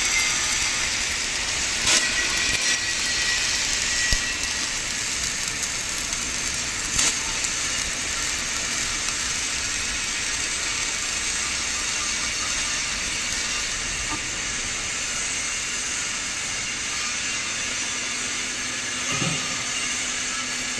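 Steady hissing workshop machinery noise, with a few sharp clicks and knocks, one about 2 seconds in, another about 4, a third about 7, and a dull thud near the end.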